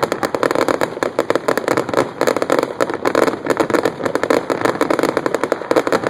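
Fireworks finale barrage: rapid, continuous bangs and crackles, packed so close together that they merge into one unbroken rattle.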